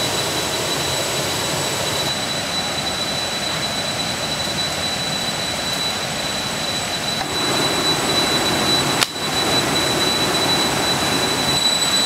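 Steady rush of a small waterfall and the stream below it, water pouring over a rock ledge and running over stones. A faint high whine sits over it, and there is a single click about nine seconds in.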